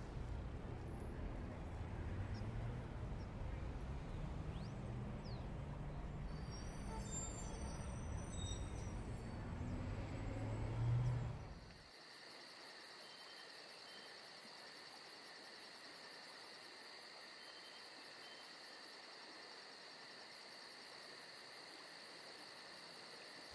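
A faint low rumbling hum, then after a sudden cut a steady faint chorus of field insects such as crickets, with thin high trills and a fast pulsing very high note.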